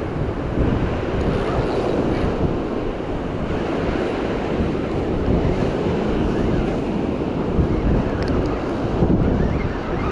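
Wind buffeting the microphone over the steady wash of ocean surf breaking on a sandy beach.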